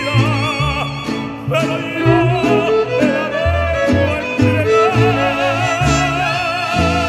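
Mariachi ensemble playing an instrumental passage: violins with vibrato carry the melody over a stepping bass line and strummed guitars.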